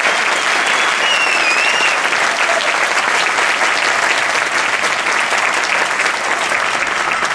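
Theatre audience applauding, a dense steady clapping, with a high-pitched wavering cheer from one spectator about a second in.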